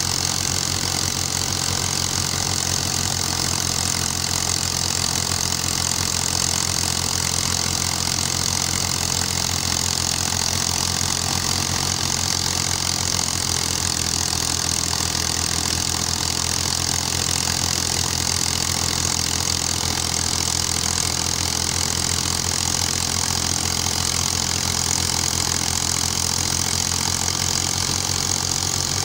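New Holland Al-Ghazi 65 hp tractor engine running at a steady speed under load as it powers a wheat thresher, with the thresher's even high hiss over the engine note.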